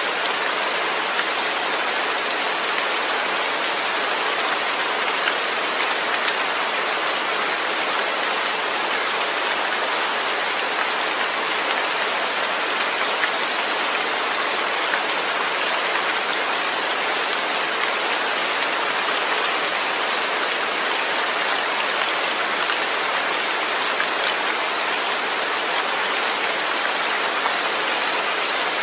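Steady rain without thunder: an even, unbroken hiss of falling rain.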